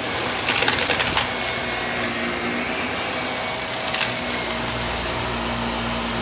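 Shark upright vacuum cleaner running steadily over a rug, with bursts of crackling and rattling as grit and debris are sucked up, about half a second in and again around four seconds in.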